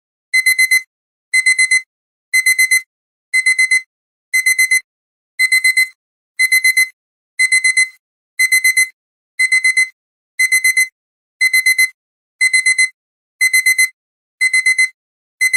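Electronic alarm clock beeping: bursts of four quick high-pitched beeps, repeating about once a second without letting up.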